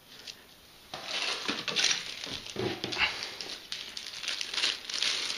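Small zip-lock plastic bags crinkling in irregular bursts as they are handled, starting about a second in.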